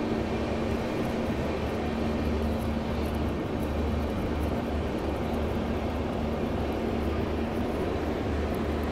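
Shatabdi Express passenger train pulling into a station platform: the steady, even rumble of its coaches' wheels and running gear on the rails with a low drone, heard from an open coach door.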